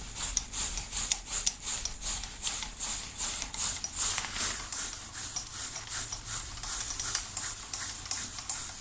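Metal lathe's cross-slide handwheel being wound steadily by hand, the leadscrew and slide giving a rhythmic scratchy ticking about three to four times a second, a little fainter near the end.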